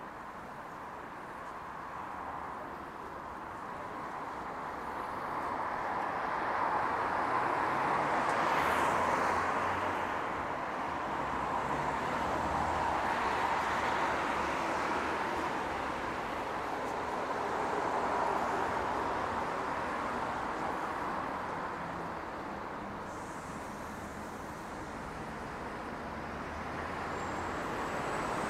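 Street traffic: cars passing one after another on a city road, the tyre and engine noise swelling and fading in several waves.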